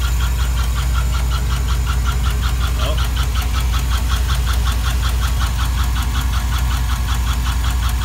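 A 2007 Chevy Silverado's 4.8 L Vortec V8 idling, heard close up from the open engine bay, with a steady low drone and a fast, even tick that keeps pace with the rpm. The owner takes the tick for a valve-train fault and suspects a bad lifter.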